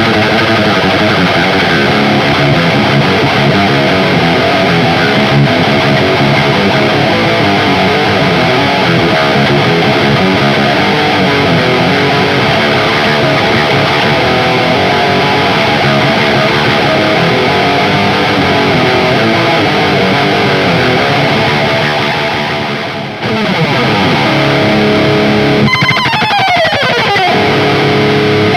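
Electric guitar with Ibanez STD C1/C2 humbucker pickups played through heavy distortion: a demo of the pickups' distorted tone. Dense chords and riffs that drop off briefly about two-thirds of the way through, then notes sliding down in pitch near the end.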